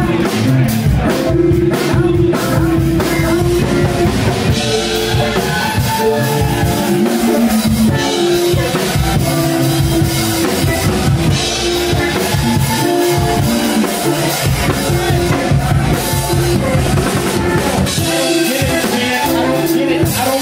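A live band plays an instrumental passage of a hip-hop and jazz-funk song, with a drum kit, bass guitar and electric guitar.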